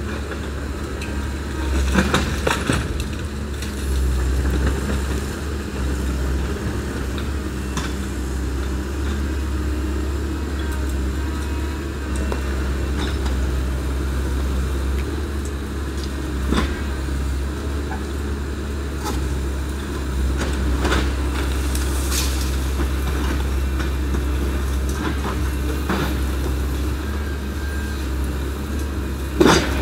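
Liebherr R924 B tracked excavator's diesel engine running steadily as its hydraulic demolition jaw breaks up a concrete building. Scattered cracks and knocks of breaking concrete and falling debris come through it, the loudest about two seconds in and again just before the end.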